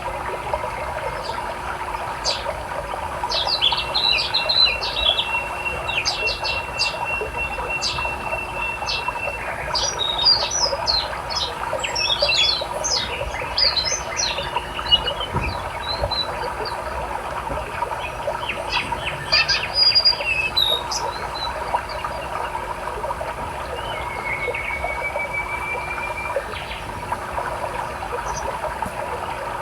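Small birds chirping and trilling, with quick high calls and a couple of long, even trills, over the steady noise of flowing river water. The calls are busiest in the first two-thirds and thin out toward the end.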